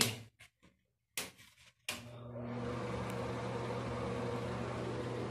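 An electric fan motor is switched on with a click about two seconds in. It spins up over about a second, then runs with a steady whir and hum.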